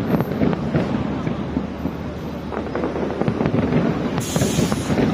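Aerial fireworks going off in quick succession: a dense, continuous run of bangs and pops, with a short hissing crackle about four seconds in.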